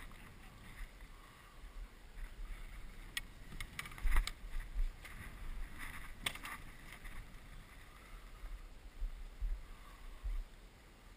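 Low wind rumble on the microphone and water moving against a small boat's hull, with several sharp knocks of gear against the boat about three to six seconds in.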